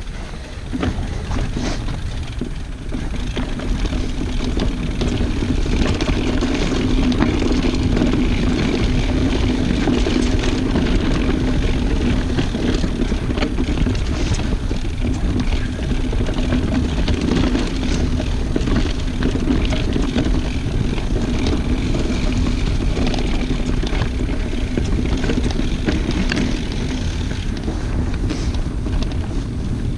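Mountain bike descending leaf-covered dirt singletrack: wind rushing over the camera microphone, tyres rolling over leaves, dirt and roots, and the bike clattering over bumps, with a steady low hum from a few seconds in.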